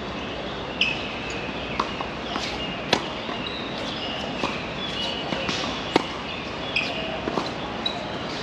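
Tennis ball being struck with rackets and bouncing on the court during a rally: sharp pops at irregular intervals of roughly a second, over steady background noise.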